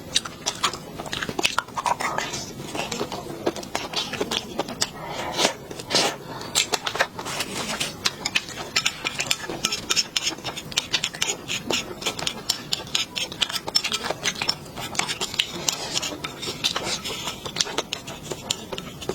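Close-up mukbang eating sounds: a person chewing and smacking through spicy fish, with many rapid wet clicks and smacks and occasional utensil scrapes.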